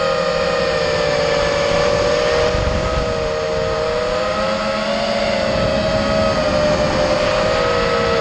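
Electric motors and propellers of an FPV racing quadcopter whining, several close pitches that rise and fall together as the throttle changes, over a low rush of air.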